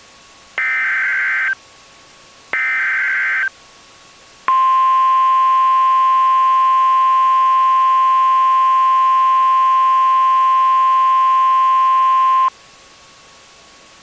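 Emergency Alert System header on NOAA Weather Radio: two bursts of buzzy SAME data tones, each about a second long, then the long steady attention tone starting about four and a half seconds in, running about eight seconds and cutting off sharply. It signals that an emergency message is about to be broadcast.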